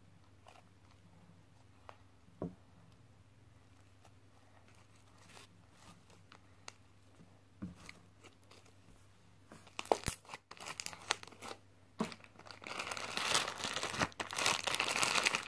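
Near quiet with a few faint soft clicks from slime being stretched and folded, then from about ten seconds in, clear plastic wrapping crinkling and rustling in the hands, growing denser and louder near the end.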